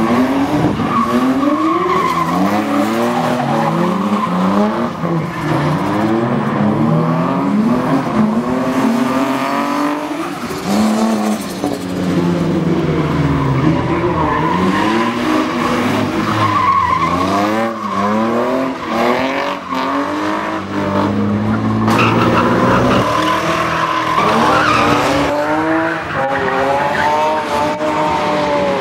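Drift cars' engines revving hard, the pitch climbing and dropping again and again, over steady tyre squeal as the cars slide sideways through the corners.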